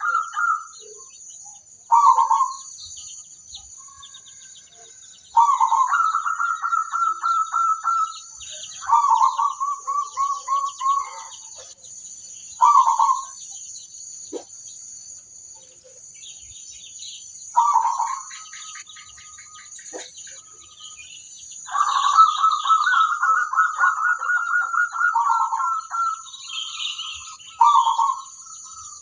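Zebra dove (perkutut) cooing: a run of rapid, trilling coo phrases repeated every few seconds, some short and some drawn out, the longest about three-quarters of the way through. A steady high-pitched hiss and faint high chirps sit under the calls.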